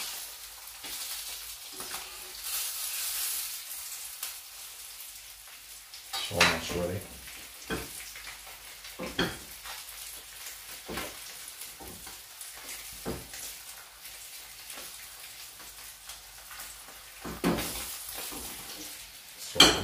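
Pan-fried sea bass fillets sizzling steadily in a frying pan, with a few short knocks and clatters of pans and utensils, the loudest about six seconds in and just before the end.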